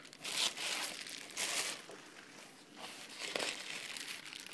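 Tissue paper and thin plastic wrapping crinkling and rustling as hands pull them out of a cardboard shipping box, loudest in two bursts in the first couple of seconds, then softer.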